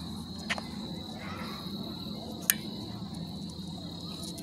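A steady high-pitched insect trill, like crickets, with two sharp clicks, the louder one about halfway through.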